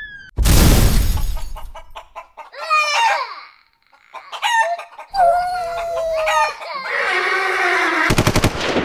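Sound effects under a title card: a sudden loud crash-like burst about half a second in, then a string of squawking, crowing calls that swoop up and down in pitch, one held long in the middle, and a fast buzzing rattle near the end.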